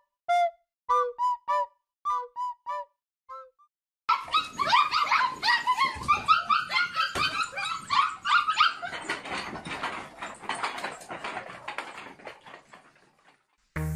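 A run of short, clear whistle-like notes, then, about four seconds in, a litter of fluffy white puppies whining and yipping all at once. Their many high cries overlap and fade out near the end.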